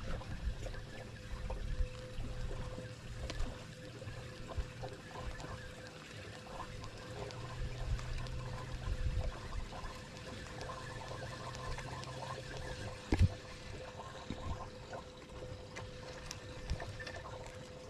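Small waves lapping and trickling against the hull of a pontoon boat, with a faint steady hum, scattered small clicks, and one sharp knock about 13 seconds in.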